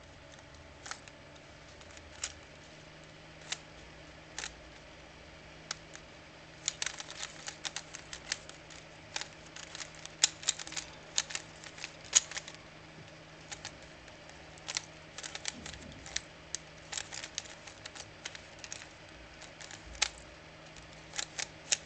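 Plastic 3x3 Rubik's Cube being turned: sharp clicks of the layers snapping round, a few spaced turns at first, then quick flurries of turns with pauses between.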